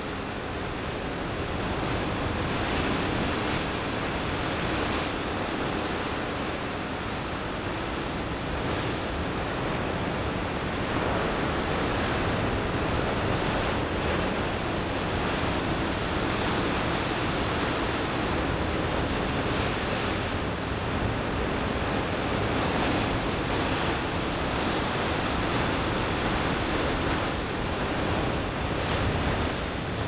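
Ocean surf: a steady rush of breaking waves and whitewater, swelling and easing a little.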